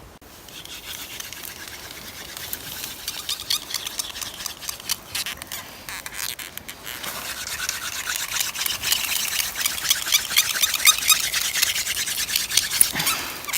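Wooden hand-drill spindle spun back and forth between the palms in a notched hearth board, a fast, rhythmic scratchy rubbing of wood on wood that grows louder about halfway through, as the board is warmed up toward making smoke and dust.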